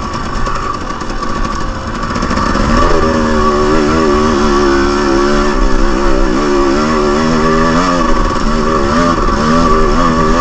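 Two-stroke dirt bike engine, a Husqvarna TX300, running along a trail. From about three seconds in its pitch wavers up and down with the throttle.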